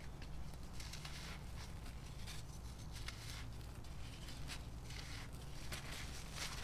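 Dry sand-and-charcoal block being crumbled and squeezed between fingers over loose sand: faint gritty crunching with many small, scattered crackles.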